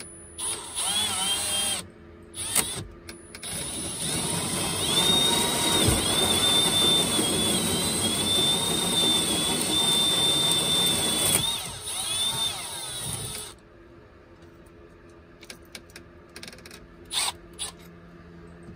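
Red Milwaukee cordless drill spinning a 1-1/8-inch metal-cutting hole saw into a wall panel. Two short bursts come first, then a long steady run of about seven seconds with a high whine as the saw cuts. It slows and stops about two-thirds of the way through, followed by a few light clicks.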